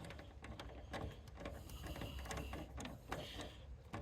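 Faint, irregular clicking and knocking of hand tools and metal parts as thick 4/0 service wire is worked into a breaker panel.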